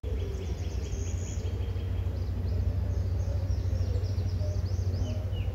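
Outdoor nature ambience: small birds chirping in quick series of short, high, falling notes over a steady low rumble.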